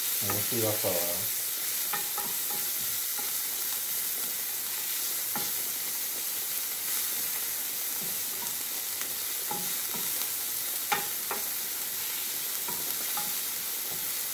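Diced onions sizzling in hot olive oil in a sauté pan as they brown. A wooden spatula stirs them and scrapes the pan, with a few sharp clicks against the pan.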